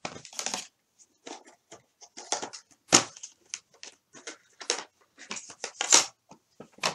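Irregular rustling and clattering of small objects being handled, with sharper knocks about 3 and 6 seconds in.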